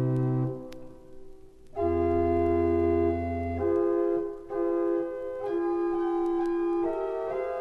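1902 Wilhelm Sauer pipe organ playing slow held chords. A chord with pedal bass is released under a second in and dies away in the church's reverberation. About two seconds in, a new chord with deep pedal bass enters, followed by sustained chords changing every second or so.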